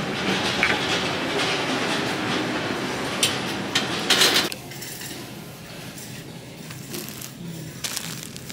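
Metal wire shopping cart rolling and rattling on a hard store floor, with a few sharp clanks about three to four seconds in. Then the rattle stops and the sound falls quieter.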